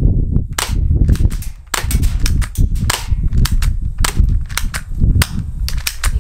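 BB gun shots fired rapidly and irregularly, about three or four pops a second, with BBs hitting a paper target. A steady low rumble runs underneath.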